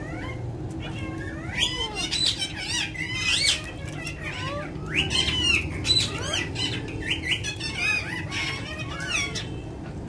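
Several Alexandrine parakeets calling and chattering: short high-pitched whistles and squawks that sweep up and down, one after another, over a steady low hum.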